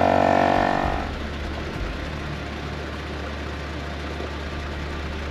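Portable air compressor running steadily while inflating a tire: a loud droning whine with several tones for about the first second, then a quieter steady low hum for the rest.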